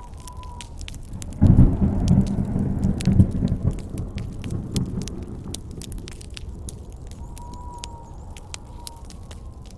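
Campfire crackling with sharp pops throughout, over a faint whistling wind. About a second and a half in, a thunderclap breaks in and its low rumble rolls away over the next three seconds.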